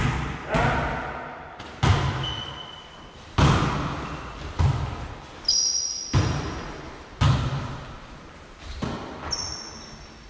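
A volleyball being played in a rally: about eight sharp slaps of hands on the ball, a second or so apart, each ringing on in the echoing gym hall. A few short squeaks of shoes on the wooden floor come in between.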